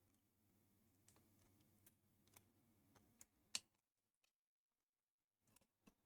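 Faint, scattered small clicks and taps from fitting a ribbon cable into its connector on a car touch-screen unit, the sharpest click about three and a half seconds in.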